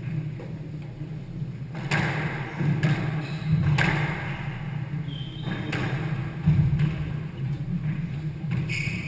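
Squash rally: sharp knocks of the ball off the rackets and court walls, about a second apart, over a steady low hum.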